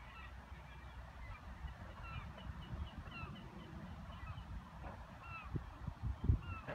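A flock of Canada geese giving short, faint honks, several a second, over a low rumble, with a few low thumps near the end.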